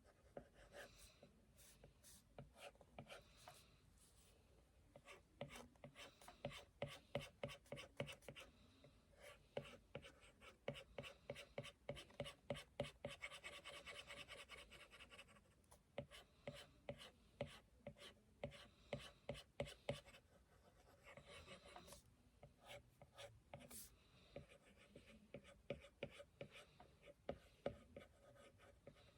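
Faint scratching of a drawing tool on a drawing surface as someone draws, in quick repeated strokes, with a long run of rapid back-and-forth strokes around the middle and quieter gaps between runs.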